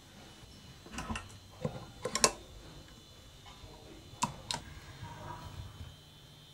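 A few short, sharp clicks from hands working a measuring station's hand push-button and controls: a quick cluster about a second in, two more just after four seconds. A faint steady hum and a thin high whine run underneath.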